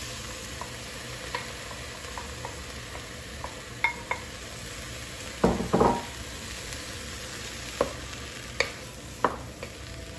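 Chopped tomatoes, jalapeño and green pepper sizzling as they are scraped from a bowl into a pot of hot oil and browned onions and stirred with a wooden spoon. The spoon knocks against the bowl and pot about ten times, loudest a little past halfway.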